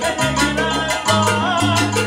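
Live salsa band playing, a stepping bass line under steady percussion strikes and held instrument notes.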